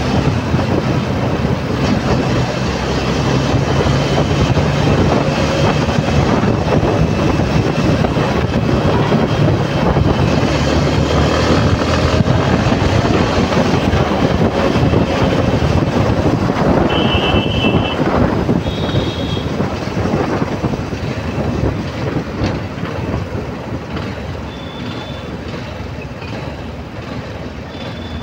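Motorbike ride through traffic: wind and road noise rushing over the phone's microphone, with the bike's engine humming underneath. A few short high-pitched beeps from the traffic sound past the middle and near the end, and the rush grows quieter over the last few seconds.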